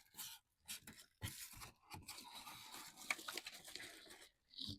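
Packaging being handled as a printer is unpacked from its box: styrofoam and plastic wrapping rustling, crinkling and scraping, with a few sharp crackles. It comes in short bursts at first, then runs almost without a break.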